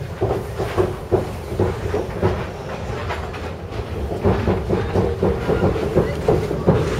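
Inside a moving vehicle's sleeper compartment: a steady low rumble with irregular knocks and rattles throughout.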